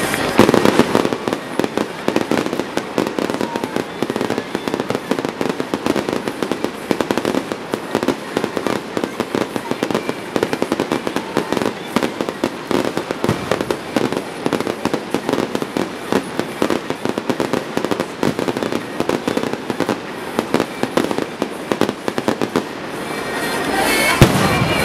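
Fireworks going off: a dense, continuous crackling of many small pops from crackle shells, with louder shell bursts about half a second in and again near the end.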